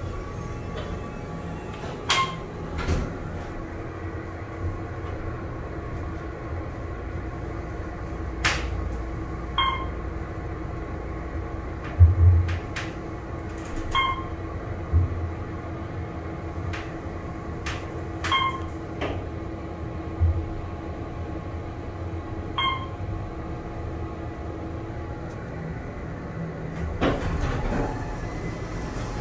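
Otis Series 1 hydraulic elevator car running upward with a steady hum, short electronic chime tones about every four seconds, and scattered knocks, the loudest a thump about twelve seconds in. The hum dies away as the car stops, and near the end the doors slide open.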